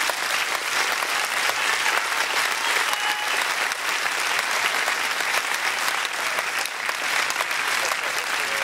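Large seated crowd of about a thousand applauding, a dense, steady clapping.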